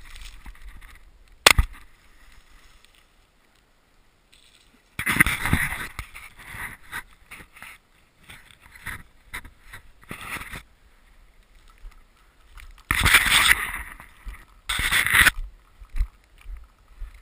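A single shotgun shot about a second and a half in. It is followed by several bursts of splashing as a retriever dog runs and swims through shallow marsh water.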